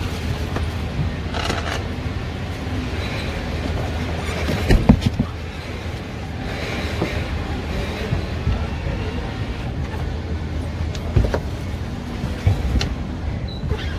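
Scattered knocks and clatter from workers handling a metal seat frame, over a steady low rumble. The loudest knocks come about five seconds in, with a few more near the end.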